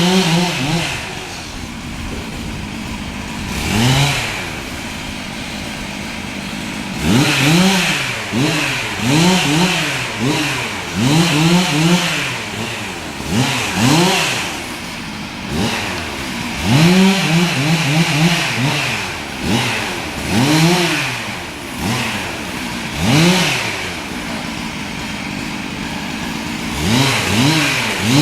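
Chainsaw engine revved up and let back down again and again in quick bursts of throttle, with short stretches at idle between.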